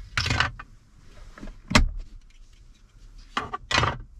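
Plastic console brackets being unclipped and pulled out of a pickup's center floor console. A short scraping rattle is followed by a sharp click, then two knocks near the end.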